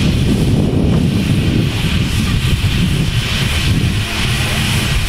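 Steady low rumble of a GWR Intercity Express Train running into the station, with a steady hum joining about four seconds in as it comes into view.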